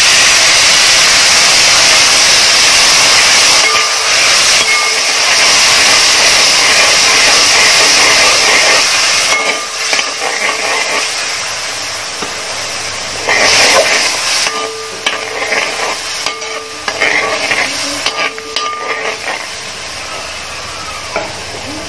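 Water poured into hot oil and fried masala in a metal pot, sizzling loudly with a steady hiss for about nine seconds, then settling into a quieter bubbling simmer as a ladle stirs it in short bursts.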